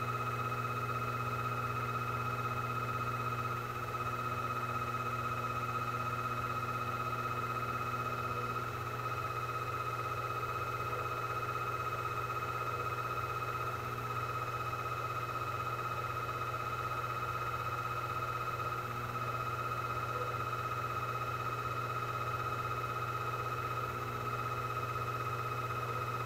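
Sherline CNC chucker lathe running, its spindle turning the part while a twist drill feeds into it: a steady low hum with a steady high tone over it.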